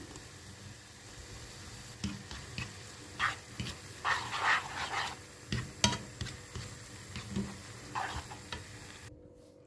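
Instant noodles being stirred and tossed in a nonstick frying pan with a utensil: irregular scrapes and sharp clicks of the utensil against the pan, starting about two seconds in, over a faint sizzle from the sauce.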